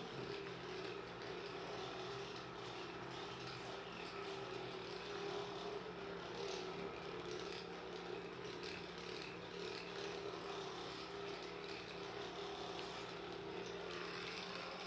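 Electric massager running steadily, an even motor hum as it is worked over the buttock and hip muscles.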